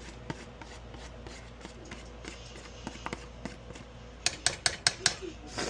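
Chopped jalapenos being added to a pan of chicken stewing in broth: faint clicks and rubbing of a utensil, then a quick run of five or six sharp taps about four seconds in.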